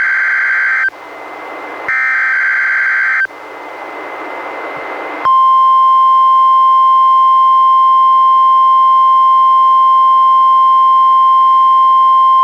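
NOAA Weather Radio alert played through a weather radio receiver: two bursts of harsh warbling SAME digital header data, each about a second long with rising static hiss between them. About five seconds in, the steady 1050 Hz warning alarm tone comes on and holds, marking a required weekly test of the alarm.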